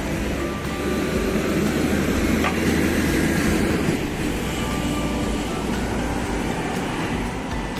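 Double-decker bus passing close by, its engine rumble swelling to a peak a few seconds in and easing off as it moves away, over steady road traffic.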